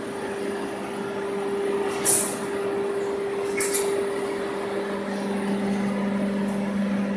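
Fence mesh bending machine running: a steady motor hum, with two short, sharp hisses about two seconds and three and a half seconds in. Its hum settles to a lower pitch about five seconds in.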